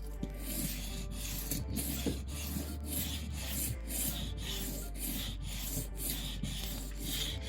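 Leatherman Rebar's knife blade sliding back and forth on the 1000-grit side of a whetstone, an even rasping at about two strokes a second, as the edge is honed.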